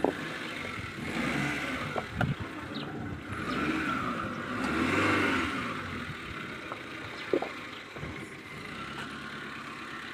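Maruti Suzuki Eeco van's four-cylinder petrol engine pulling at low speed as the van crawls over loose rocks, revs swelling in the middle. A few sharp knocks come as the tyres and body meet the stones.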